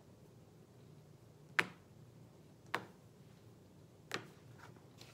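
Three sharp clicks a little over a second apart, with a fainter one just after the last, as small magnets snap onto a metal board to hold the cards.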